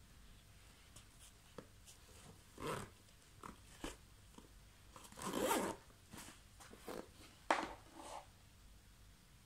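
Zipper on a black fabric tactical shoulder bag being pulled shut in several short rasping strokes, the longest and loudest about halfway through. The bag is also handled, with a few light knocks and rustles.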